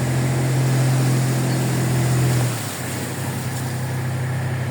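Tractor engine running as the tractor drives past, a strong steady low hum that drops slightly in pitch and loudness about two and a half seconds in as it goes by.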